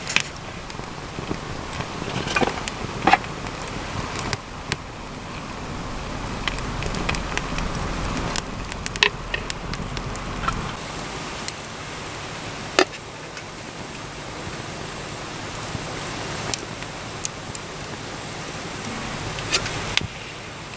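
Small wood fire crackling in a mini fire pit: a steady hiss with scattered sharp pops every second or two.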